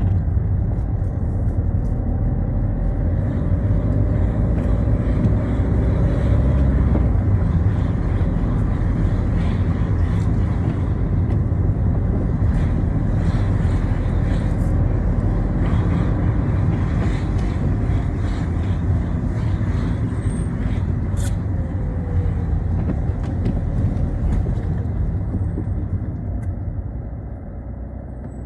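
Citroën Xsara driving on a wet road: steady engine rumble and tyre noise, with scattered light ticks in the middle of the stretch.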